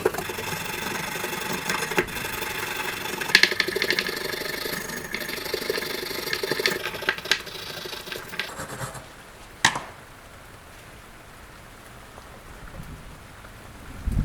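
Hand rubbing and scraping on the old dagger, with scattered clicks for about nine seconds. A single sharp click follows, then a quieter stretch.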